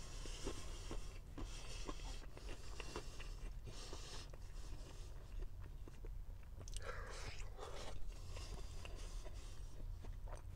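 A man chewing and biting into a meat pie with crisp pastry: small crunches and mouth noises, with a fresh bite about seven seconds in.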